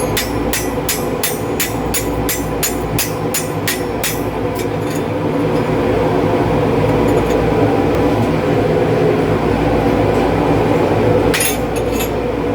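Hammer blows, a little over two a second, for the first four seconds or so and again briefly near the end, over a steady workshop machine hum.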